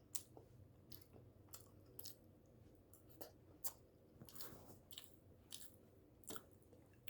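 Faint, close-up chewing of a mouthful of pancake: soft, irregular wet smacks and clicks from the mouth.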